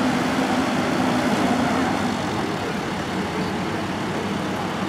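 Diesel engine and hydraulics of a Gremo 1050F forestry forwarder running steadily as its crane loads logs, with a steady hum that fades about two seconds in.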